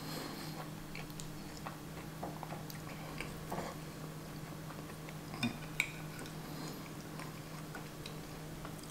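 Eating sounds: chewing and light clinks of a metal fork and knife against a ceramic plate, with two sharper clicks about halfway through. A low steady hum runs underneath.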